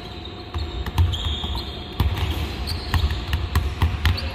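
Several Molten basketballs bouncing at once on a hardwood court, irregular overlapping thuds in a large arena.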